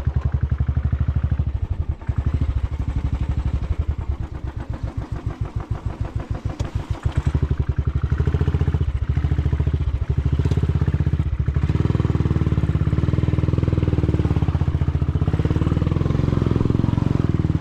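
Motorcycle engine running at low revs, its separate firing pulses plain, growing louder about seven seconds in and staying loud.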